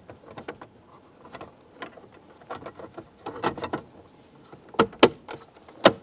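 Plastic center-console trim panel being set around the shifter and pressed into place by hand: scattered light clicks and taps, with a few sharper knocks near the end.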